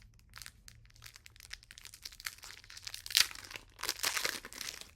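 Foil wrapper of a Pokémon trading card booster pack crinkling and crackling as it is handled and torn open, with the sharpest crackle about three seconds in.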